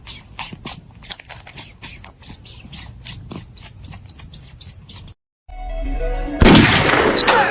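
A quick, irregular run of sharp clicks or scratches, a few a second, that stops abruptly; after a short gap, music starts with a loud hit.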